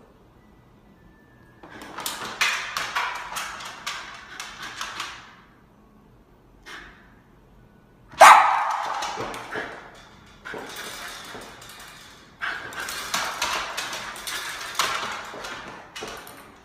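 Shiba Inu puppy barking, in several noisy spells a few seconds long. The loudest is a sudden sound about eight seconds in.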